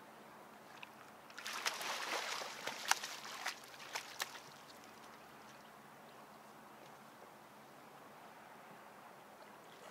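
A hooked catfish thrashing and splashing at the water's surface for about three seconds, with several sharp slaps of water.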